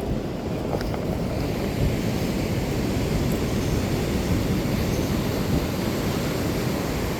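Steady low rumble of wind buffeting the microphone mixed with ocean surf washing on the beach.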